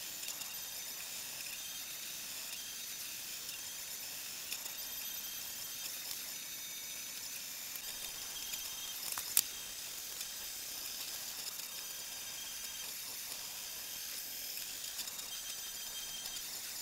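Monoprice Select Mini 3D printer running a print: a steady fan hiss with short, high stepper-motor whines that come and go as the head moves, and one sharp click about nine seconds in.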